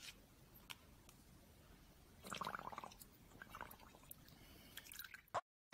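Faint splashes and soft taps as a puppy paws at water in a shallow plastic tub and dabs its nose in it. A slightly louder patch of splashing comes a little over two seconds in.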